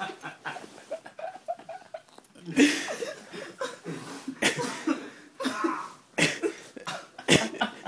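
Several young men laughing hard, in breathless, coughing bursts of laughter, with a few sharp hits cutting through, the loudest about two and a half seconds in.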